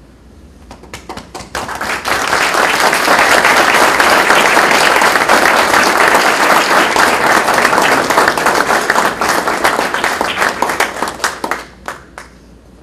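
Audience applauding. Scattered claps build over about two seconds into steady, full applause, which thins out into a few last claps near the end.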